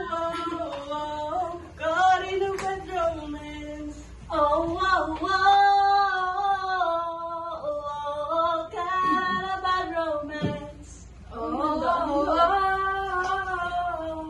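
A woman's voice singing a slow melody in long held notes, with no instruments, pausing twice between phrases.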